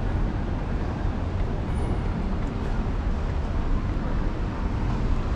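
Steady city street traffic noise: a continuous rumble of passing vehicles with no distinct single event.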